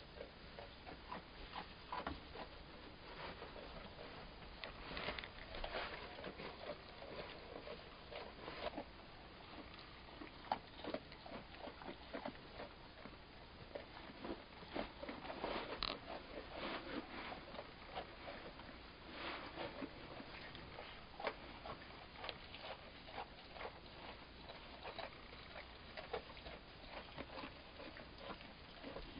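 Pygmy goat kids' small hooves pattering and shuffling on straw bedding: faint, irregular rustles and light clicks, with no bleating.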